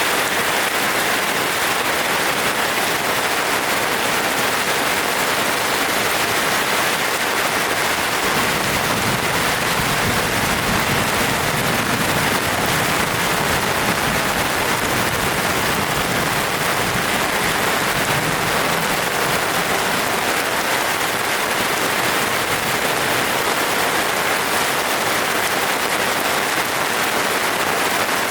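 Steady rain falling, a dense, even patter without let-up.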